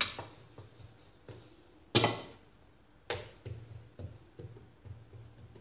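Dough being rolled out with a stainless-steel rolling pin on a silicone mat: faint low rolling rumbles broken by sharp knocks, the loudest about two seconds in and another a second later, as the pin is handled and set down across a glass bowl.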